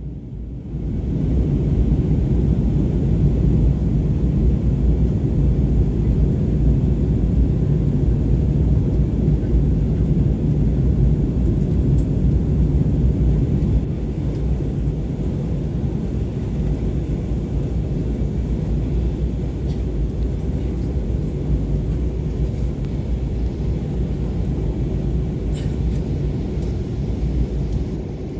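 Steady low rumble of an airliner in flight heard from inside the cabin: engine and airflow noise during the descent to land. It fades in at the start and eases slightly about halfway through.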